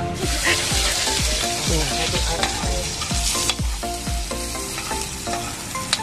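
Cooking oil sizzling in a wok on a portable gas stove while a ladle stirs it. The hiss is strongest for the first three and a half seconds and then eases.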